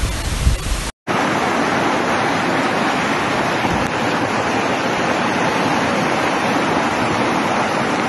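Gusty wind buffeting the microphone for about a second, then, after a brief drop-out, the steady rushing of fast-flowing floodwater.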